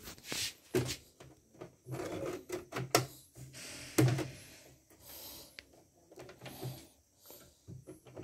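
Hands handling the plastic needle plate and bobbin area of a CNY portable embroidery machine: irregular clicks and knocks, the sharpest about a second, three and four seconds in, with short spells of rubbing between.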